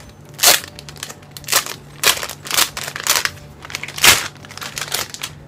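Plastic packaging bag crinkling as it is pulled open by hand, in a series of sharp crackles, the loudest about half a second in and again about four seconds in.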